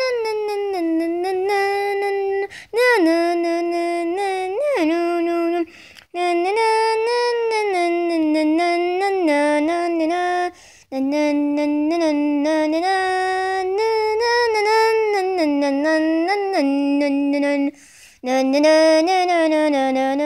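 A lone voice, female or a child's, singing a wordless tune in long, held notes. The phrases last a few seconds each, with short breaks between them.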